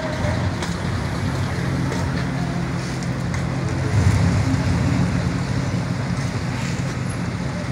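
Chevrolet pickup truck's engine running with a steady low hum, briefly louder about four seconds in.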